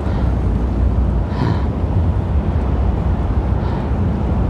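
Steady low rumble of wind on the microphone and tyres rolling on asphalt as a mountain bike is ridden along the road, with a brief rush of noise about a second and a half in.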